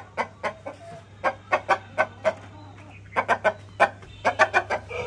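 Chicken clucking: a run of short, quick clucks, several a second, in little clusters.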